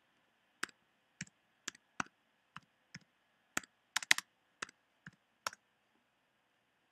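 Computer keyboard keys typed one at a time: about thirteen separate, unevenly spaced keystrokes over five seconds, including a quick run of three, as an IP address is entered.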